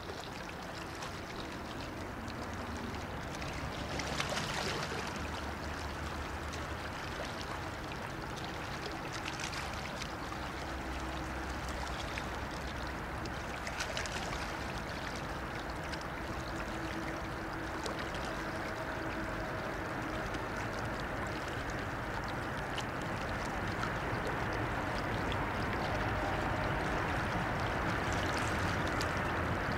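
Steady rushing of river water and wind at the Rhine bank, growing gradually louder toward the end as a long container freight train runs along the far bank, with faint steady hums underneath.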